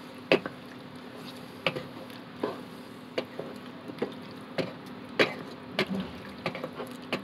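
Raw chicken livers frying in hot oil in a pan, a steady sizzle broken by frequent sharp pops, about one or two a second, as they are stirred with a wooden spoon.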